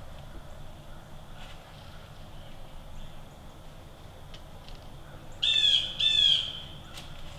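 A bird gives two loud, harsh calls in quick succession, each sliding downward in pitch, over quiet woodland background.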